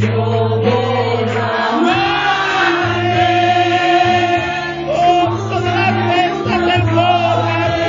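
Worship group singing a slow Spanish-language worship song into microphones, with long held notes over a steady low instrumental backing, amplified through a PA.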